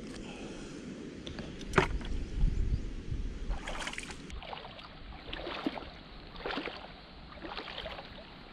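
A metal hook tool knocks sharply once against reef rock about two seconds in. In the second half come splashing steps through shallow tide-pool water, about one a second.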